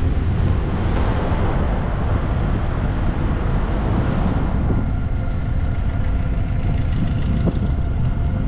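Steady low road rumble of a vehicle driving, with a hiss that swells and then fades about five seconds in.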